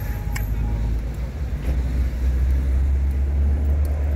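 Car on the move: a low, steady rumble of engine and road noise that grows louder about halfway through, with a light click near the start.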